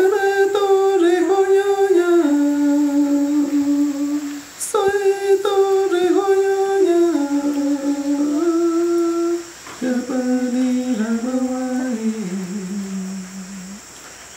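A man singing a Shipibo icaro (healing song) solo and unaccompanied. He sings three phrases, each stepping down in pitch, with short breaks about four and nine and a half seconds in.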